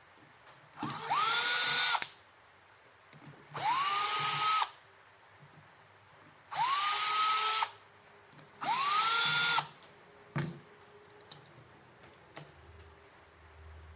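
Electric drill run four times in short bursts of about a second each, its motor whining up in pitch and holding steady before it stops. A single knock follows a little after the fourth run.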